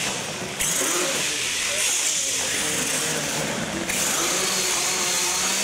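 R/C monster trucks running on a concrete floor: a steady high hiss of motors and tyres that jumps louder about half a second in, with onlookers' voices under it.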